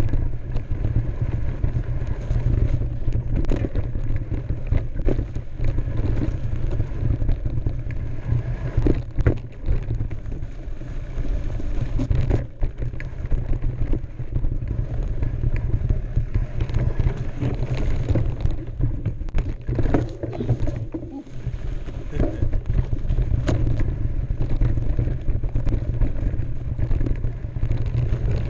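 Mountain bike riding down a dirt forest trail: a steady wind rumble on the microphone, with tyres crunching over dirt and the bike rattling and knocking over roots and rocks.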